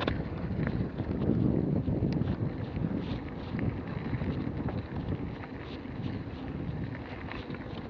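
Wind buffeting a handlebar-mounted action camera's microphone as a mountain bike rolls along a dirt trail. The tyres rumble over the ground and there are scattered light clicks and rattles.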